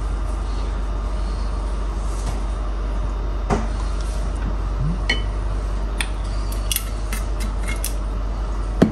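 Spoons and kitchen containers clinking and tapping now and then over a steady background hum, while seasonings are spooned onto cut beef. The taps come in a cluster in the second half, with a louder knock near the end.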